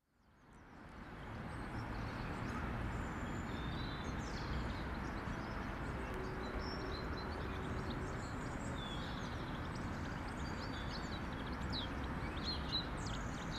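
Outdoor ambience fading in: small birds chirping and twittering over a steady low background noise.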